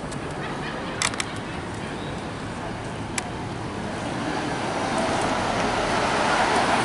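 City street traffic noise, swelling over the last few seconds as a vehicle approaches, with a few sharp clicks about a second in and at three seconds.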